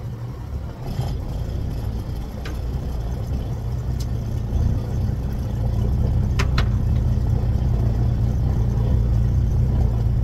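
A fishing boat's engine running steadily under way, a low hum as the boat motors back onto the fishing spot after drifting off it. A few light clicks sound over it.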